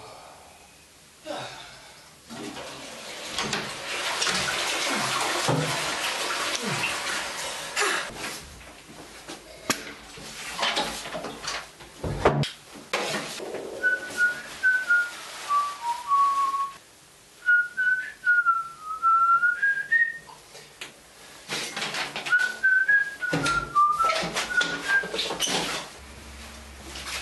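A man whistling a tune in short broken phrases. Before that, a few seconds of rushing running water, with scattered knocks and clicks.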